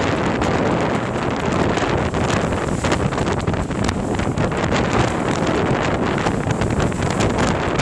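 Strong wind buffeting the microphone, a steady rush broken by quick gusty thumps.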